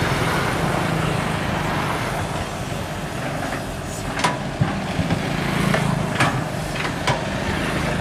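Sumitomo 265 tracked excavator's diesel engine running steadily under load as the machine works in soft, boggy ground, with a few sharp knocks in the second half.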